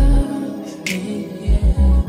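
Background music: a song with heavy, deep bass notes and a sharp hit about a second in.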